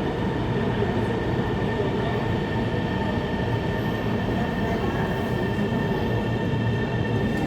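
Shenzhen Metro Line 13 train running, a steady rumble with a steady electrical whine layered over it.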